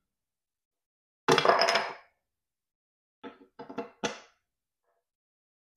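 Propeller pitch blocks being set and pressed into place over the blade roots on the hub: one sharp knock about a second in, then a few lighter clicks a couple of seconds later.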